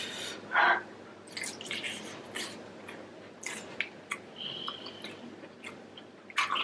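Close-up wet chewing and lip smacking of someone eating sauce-covered prawns: scattered small clicks and squishes, with a short puff of breath about half a second in and another near the end.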